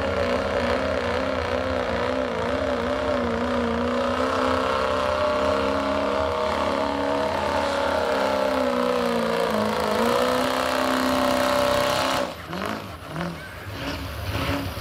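Ford Super Duty pickup's turbo diesel engine, limited to a 2.6-inch smooth-bore turbo, running hard under full load while pulling a sled, its pitch wavering up and down as the tyres grab and slip. About twelve seconds in the engine drops off sharply as the throttle is let off.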